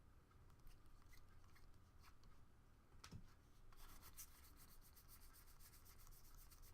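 Faint rubbing of trading cards being slid one over another as a stack is flipped through. There are a few light ticks, then from a little over halfway a quick, even run of soft scrapes, several a second.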